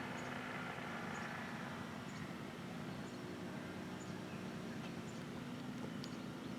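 Grass trimmer's small engine running steadily, heard as a low drone that holds one pitch, with faint short high chirps about once a second.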